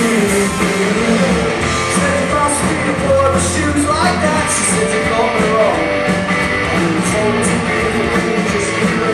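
Live rock band playing loudly: electric guitars, bass and a drum kit with crashing cymbals, with a singer's voice over them, recorded from the audience in the venue.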